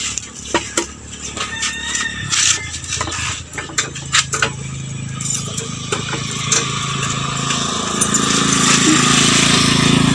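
Light clicks and knocks as a small plastic access point is handled, then an engine running that grows steadily louder through the second half and becomes the loudest sound.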